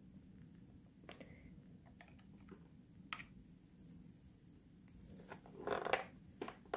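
Faint handling clicks and taps of a plastic connector plug being lined up and pushed into the socket of a portable nail drill's control box, with a sharper click about three seconds in and a louder brief rustle near the end.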